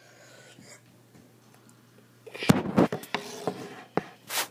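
Knocks, bumps and rustling of a handheld camera being fumbled and handled close to its microphone, starting about halfway through with a sharp knock and ending with a louder scrape near the end.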